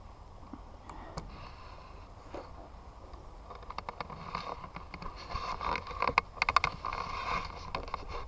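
Rustling and clicking handling noise as the action camera is moved and turned around, growing busier after the first few seconds with a run of sharp clicks, over a steady low rumble of wind on the microphone.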